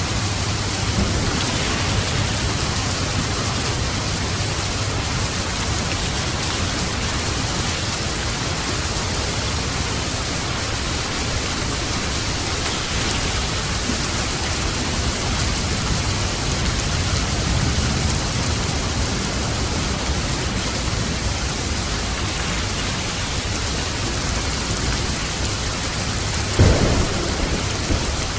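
Steady rain with low rumbling thunder rolling underneath. A sudden, louder clap of thunder comes near the end.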